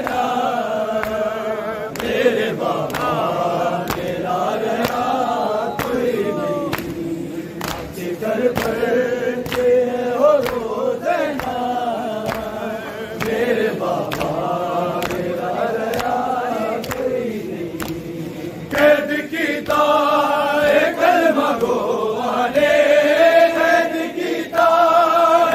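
Many men's voices chanting a noha, a Shia mourning lament, in a slow, drawn-out melody, with sharp slaps about once a second, the beat of chest-beating (matam). The chanting gets louder about two-thirds of the way through.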